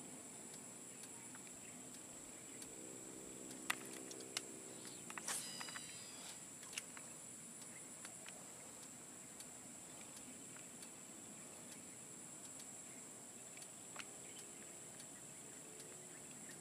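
Steady high-pitched drone of an insect chorus, with a faint low hum that swells and fades twice and a few scattered sharp clicks.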